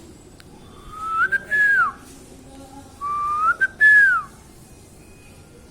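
A parrot whistling two clear notes about two seconds apart, each rising, holding briefly, then dropping away at the end.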